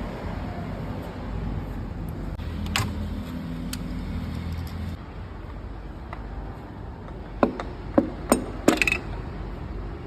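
Workshop noise during an engine teardown: a low steady machine hum for a couple of seconds, then four sharp knocks in quick succession, like metal tools or parts being set down.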